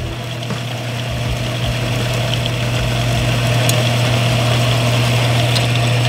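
Old metal-cutting bandsaw, fitted with a new belt and blade, running and cutting through steel square tubing: a steady motor hum under a rough cutting noise that grows gradually louder.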